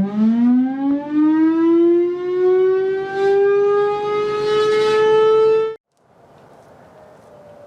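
Federal Signal Modulator electromechanical outdoor warning siren winding up from a standstill, its loud tone rising steadily in pitch for about six seconds. It then cuts off suddenly, leaving only a faint, slowly falling tone.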